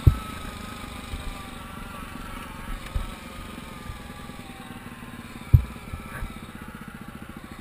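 Honda Tornado XR 250 dirt bike's single-cylinder four-stroke engine running steadily at low revs, its pitch easing slightly downward. Three sharp low thumps cut through it: one at the start, one about three seconds in, and the loudest about five and a half seconds in.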